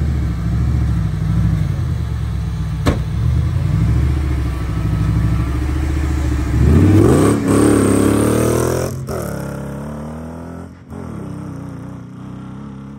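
Off-road side-by-side buggy's engine running steadily, with a single sharp knock about three seconds in. About six and a half seconds in it revs up hard in several rising surges as the buggy accelerates away, then fades as it pulls off into the distance.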